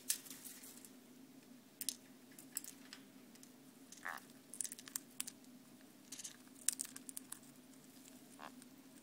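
Sun conure picking at and cracking treats with its beak: scattered small clicks and crackles. About four seconds in it gives a short oink-like grunt, the sound it makes when it gets treats, and a fainter one near the end.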